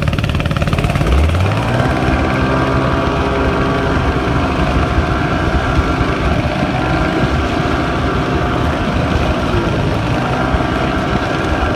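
Engine of a 1998 Ski-Doo Mini Z 120 youth snowmobile revving up about a second in as it pulls away, then running steadily with small rises and dips in pitch as it travels across the snow.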